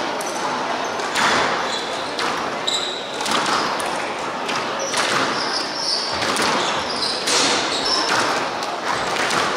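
Squash ball being struck by racquets and hitting the court walls during a rally, a sharp echoing smack about once a second, with short sneaker squeaks on the wooden court floor.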